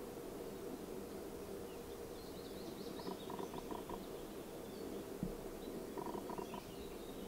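Faint birdsong over a steady outdoor background noise, with two short runs of quick soft ticks, about seven a second, partway through and near the end.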